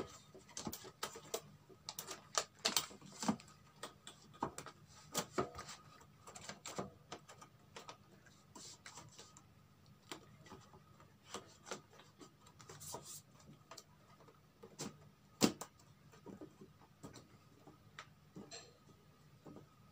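Irregular light clicks and taps of the thin plastic diffuser and optical sheets being handled and laid back over an LED TV's backlight panel, with one louder knock about fifteen seconds in.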